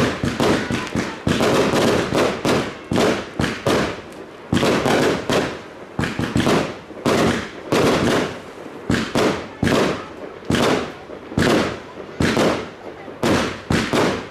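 Fireworks display going off in a continuous barrage: sharp shell bursts, about two to three bangs a second, with crackling between them.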